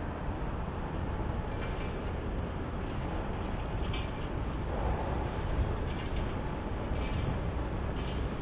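Steady low rumble of city road traffic, with a few faint clicks scattered through it.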